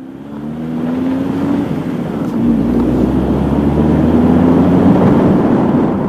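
A car driving along a highway, heard from a camera mounted outside on its bonnet: engine hum under loud, rushing wind and road noise that builds over the first second or so, then holds steady.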